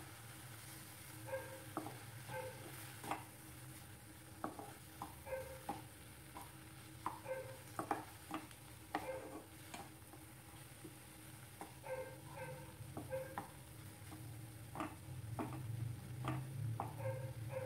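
A spatula scraping and tapping against a non-stick kadai as chopped tomatoes are stirred and fried without oil, with a quiet sizzle. The strokes come in irregular short clicks over a steady low hum.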